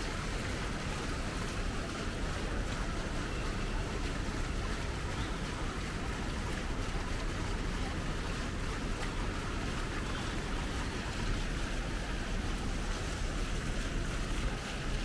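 Steady city street ambience: an even rushing noise with no single sound standing out, heaviest in the low rumble.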